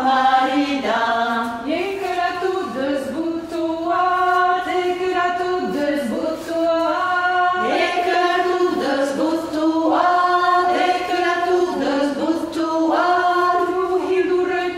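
A small group of mostly women's voices singing a Gascon ronde (ring-dance song) unaccompanied, in steady phrases of held notes a few seconds long.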